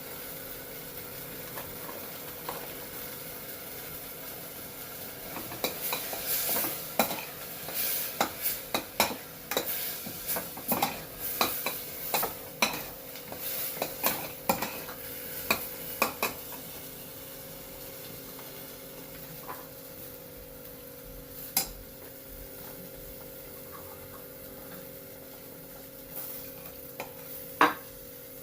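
Spoon or spatula stirring and scraping a thick tomato-and-spice masala in a cooking pan, with a light sizzle; a run of quick knocks and scrapes against the pan from about five seconds in to about sixteen, then only a few more. A steady hum runs underneath.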